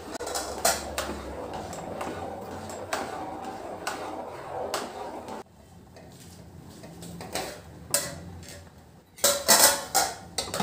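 Steel spoon stirring rice in a metal cooking pot, scraping and clinking against the pot's sides for about five seconds. After a quieter stretch, a few louder metal clanks of the spoon and pot near the end.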